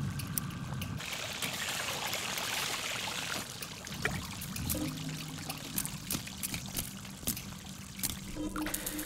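Hot oil hissing and dripping off freshly deep-fried pork meatballs held in a perforated metal strainer. From about four seconds in, a metal ladle strikes the meatballs, making a run of sharp, crackly clicks like breaking glass.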